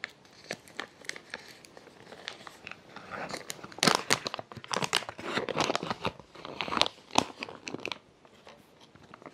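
Freeze-dried meal pouch crinkling and crackling as its zip-lock top is pulled open and a spoon stirs the rehydrating meal inside. The loudest crinkles come between about four and seven seconds in.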